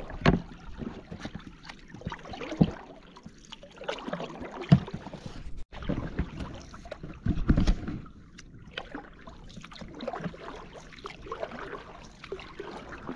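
A small boat being rowed on calm water: oar strokes swish through the water about every two to three seconds, with occasional sharp knocks.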